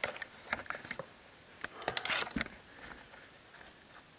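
Soft rustling with a scatter of light clicks and taps, and a denser burst of rustling about two seconds in that ends in a dull knock.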